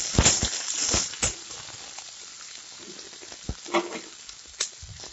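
Chopped onions sizzling in hot oil in a kadai, stirred with a metal spatula that knocks and scrapes against the pan several times. The sizzle is loudest in the first second or so, then settles lower.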